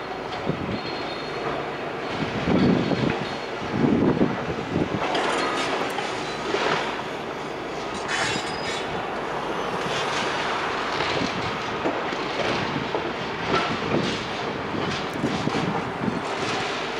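Demolition work: heavy machinery breaking up a building, with rubble and metal clattering, scraping and knocking. There are heavier thuds a few seconds in.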